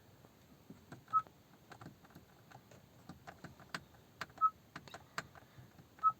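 Three short high beeps from a 5th-gen Honda City's instrument cluster, about a second in, near the middle and at the end, as the dashboard dimmer's plus button is pressed to raise the display brightness. Faint clicks from the button can be heard between the beeps.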